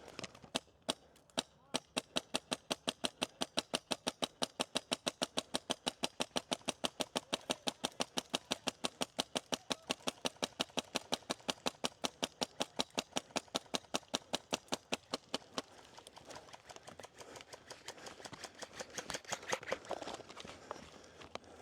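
HPA airsoft rifle (Wolverine MTW) firing: a few single shots, then a long even string of rapid shots, about five a second, that stops a little past the middle. A rising rustle follows near the end.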